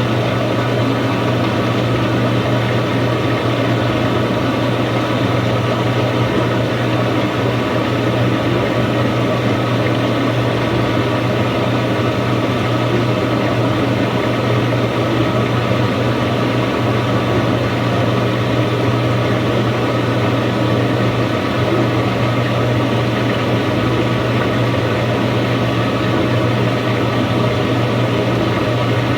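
Samsung washing machine running with a steady low hum under an even rushing noise that does not change.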